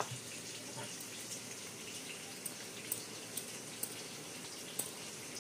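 Wooden rolling pin rolling out samosa dough on a granite counter: a quiet steady rubbing hiss with a few small sharp clicks now and then.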